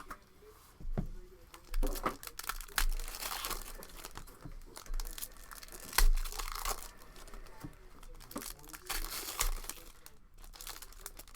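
Wrapping on trading card packs or a card box crinkling and tearing, in irregular crackles and rustles with one louder rip about halfway through.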